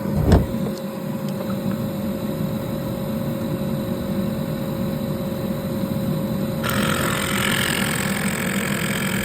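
Ford 6.0 Powerstroke V8 turbo-diesel idling steadily, with a thump near the start. About two-thirds of the way in, a steady higher hiss switches on and runs alongside the idle.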